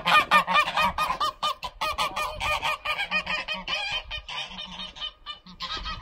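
Several domestic geese honking in quick, repeated calls, several a second, loudest at first and growing fainter, with a brief lull near the end before they pick up again.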